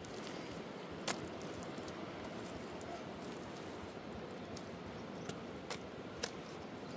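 Steady, fairly quiet outdoor background hiss with a few sharp clicks or taps: one about a second in and three close together near the end.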